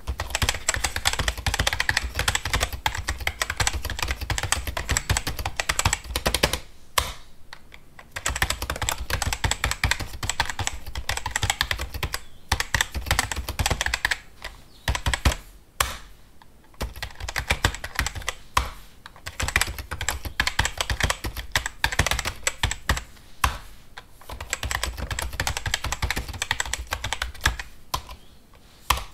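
Fast typing on a computer keyboard: rapid, dense key clicks in runs, broken now and then by brief pauses.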